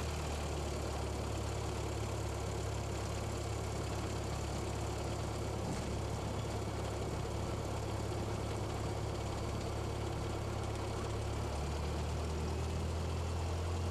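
Cessna 172's four-cylinder engine and propeller running steadily at low taxi power, heard in the cabin as a constant low drone. The pitch shifts slightly near the end.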